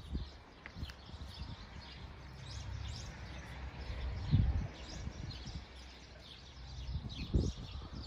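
Small birds chirping, many short high calls in quick succession, with two dull low thumps, one about four seconds in and one about seven seconds in.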